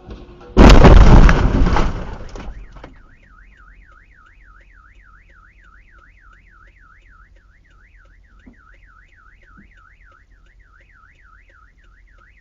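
A car crash: a sudden loud impact and crunch that fades over about two seconds, followed by a car alarm warbling up and down about four times a second.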